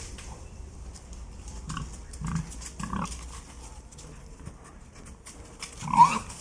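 Pigs grunting: a few short grunts, with a louder one near the end.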